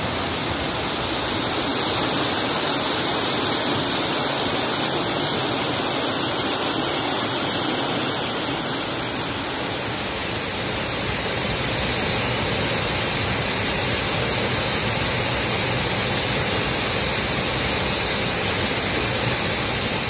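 Waterfall cascading down over rock: a steady, even rush of falling water with no break.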